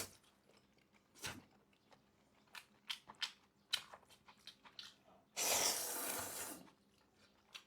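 A person eating chopped-chili noodles: chewing with small wet mouth clicks, and a hissing slurp of noodles lasting over a second about five seconds in.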